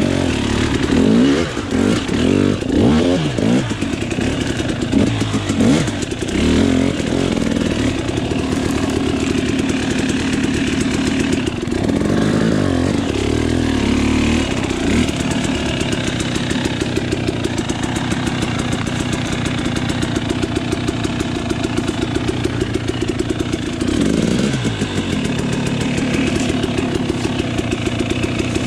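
Off-road motorcycle engine running, its pitch rising and falling with several blips of the throttle in the first few seconds and again near the end, and holding steadier in between.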